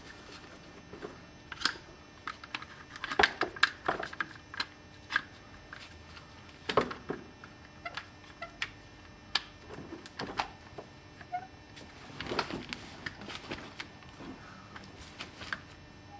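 Irregular metallic clicks and knocks of tools working on a 2002 Ford Focus front brake caliper while its piston is being pressed back. Some come singly and some in quick clusters, the thickest about three seconds in and again near twelve seconds.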